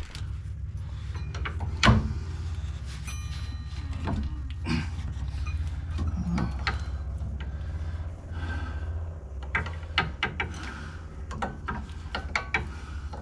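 Irregular metal knocks, clicks and scrapes from hand tools, a pry bar among them, working on a car's front suspension. There is a ringing metallic clink about three seconds in, all over a steady low hum.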